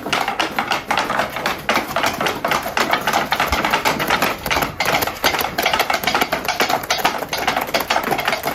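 Rapid, dense clicking and tapping: a continuous run of many small hard knocks, several each second, with no pause.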